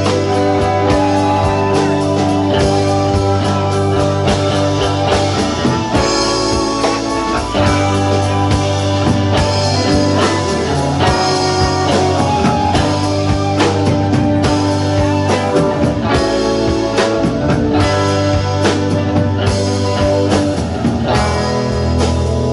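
Live rock band playing: electric guitar, bass guitar, Nord Electro keyboard and a Tama drum kit, with a steady beat throughout.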